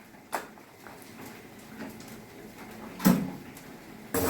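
Pap balls being rolled around in breadcrumbs in a dish: two short, soft knocks against the dish, then a louder scraping rustle just before the end.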